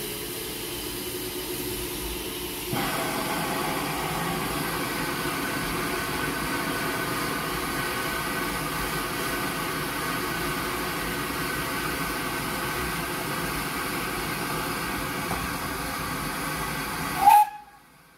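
Steady hiss of escaping steam from GWR 2800-class 2-8-0 No. 2857 standing in steam. The hiss steps up in level about three seconds in, with faint whistling tones in it. Near the end comes a brief, loud high squeal, then the sound cuts off abruptly.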